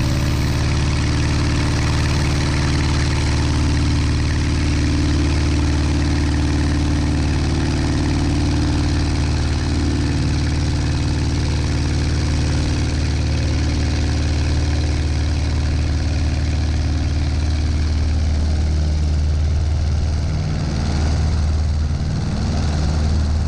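Cessna 140's four-cylinder engine and propeller running steadily at full takeoff power through the takeoff roll and liftoff, its note shifting slightly near the end as the plane leaves the runway.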